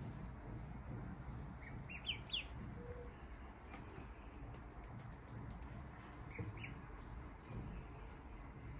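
Ducklings peeping: a quick run of four short high peeps about two seconds in, and two more later on.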